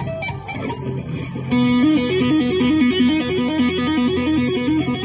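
Harmony Silhouette electric guitar with a gold-foil pickup, played through an amp for a lead sound. It plays single picked notes, then about a second and a half in it breaks into a louder, fast repeating lick of alternating notes.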